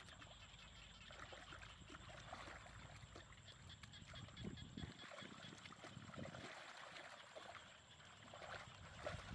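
Faint, scattered splashing and sloshing of hands groping through a shallow muddy puddle, with small irregular slaps of water.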